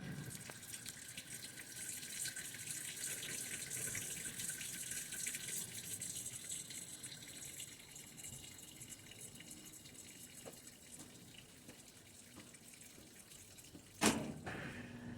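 Whirlpool Xpert Collection washing machine taking in water during its express cycle: a steady hiss of running water, strongest for the first several seconds and then easing. A single sharp click comes near the end, followed by a low hum.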